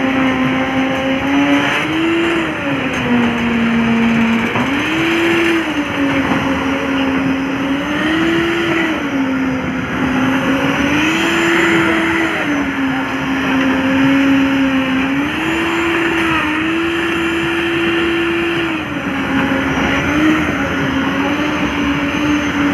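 Engine of a concrete mixer with a lift hoist running continuously and loud, its pitch dropping and climbing back every few seconds as the load comes on and off while concrete is mixed and lifted up to the roof.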